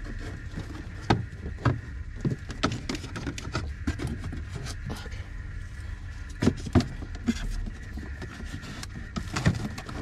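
Plastic yogurt cups and food containers being handled and set down inside a fridge: irregular light clicks and knocks against the shelves and door rack, with two louder knocks a little past halfway.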